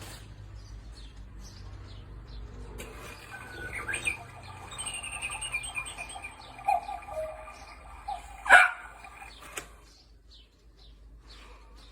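Cuckoo clock sounding its cuckoo call at the hour, lasting about seven seconds, with a descending two-note call and a sharp click near the end.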